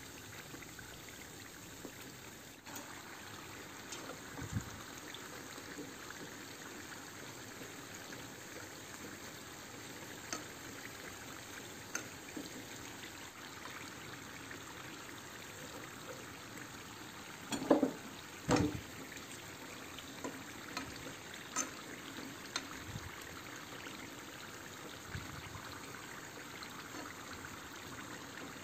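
Peanut-filled brick-pastry triangles sizzling steadily in hot oil as they deep-fry. There are scattered light clicks and two louder knocks about two-thirds of the way through.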